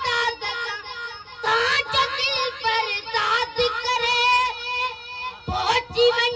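A boy singing a manqabat, a Sufi devotional song, into a microphone and through a PA loudspeaker, the melody wavering in ornamented runs.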